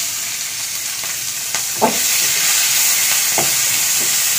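Sliced onions and green chillies sizzling in hot oil in a kadai, stirred with a wooden spatula that knocks against the pan a few times.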